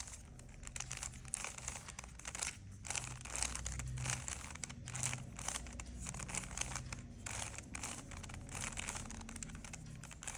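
Plastic Rubik's cube layers being twisted in quick repeated turns, a dense irregular run of clicking and rattling, as the R U R' U' sequence is run to finish the white side.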